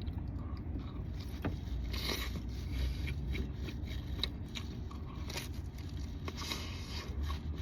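A person biting and chewing deep-dish pepperoni pizza close to the microphone: irregular wet clicks and crunches of crust, over a steady low hum.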